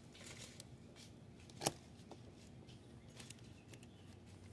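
Faint rustling and scattered light clicks of handling noise, with one sharper click about a second and a half in.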